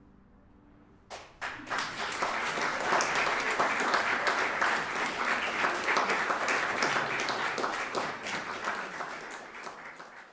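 Audience applause breaks out about a second in after a brief hush, builds to a full, even clapping, and begins to thin out near the end.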